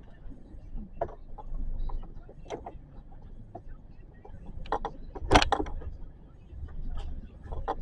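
A run of clicks and knocks from someone handling things inside a car, the loudest a sharp click about five and a half seconds in, over a low rumble.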